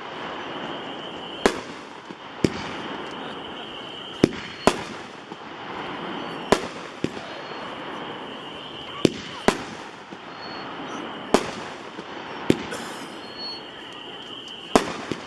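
A 12-shot 200-gram consumer repeater cake (Gold Brocade Bash) firing its aerial shells: sharp bangs come every second or two, some in quick pairs, about eleven in all.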